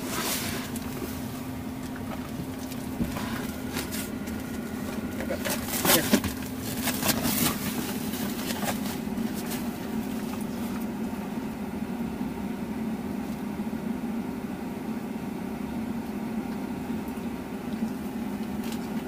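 A Tesla's climate system running in dog mode, its fan a steady hum in the closed cabin as it keeps cooling the car. A few brief knocks and rustles come about six to eight seconds in.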